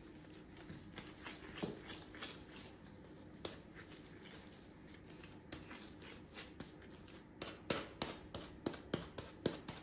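Disposable plastic-gloved hands working soft bread dough over a parchment-lined baking tray: small soft taps and rustles, then a quicker run of sharper pats and taps near the end.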